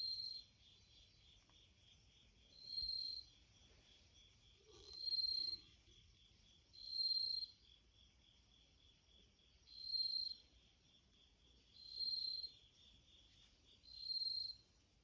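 Bell cricket (suzumushi) chirping: seven clear, high ringing bursts of about half a second each, spaced roughly two seconds apart. A steady, fast-pulsing trill from another insect runs beneath them.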